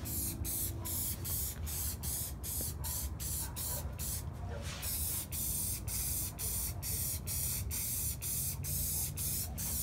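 Aerosol spray-paint can hissing as paint is sprayed, the hiss cut by many quick short breaks and one longer pause about four and a half seconds in.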